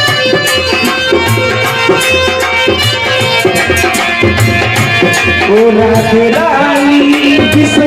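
Devotional bhajan music: a steady hand-drum beat under sustained chords, with a wavering melody line coming in about five and a half seconds in.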